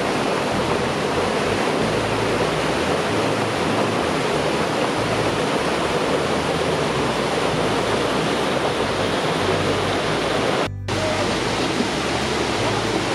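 Steady rushing of a rocky mountain stream, an even hiss without breaks that drops out for a moment near the end.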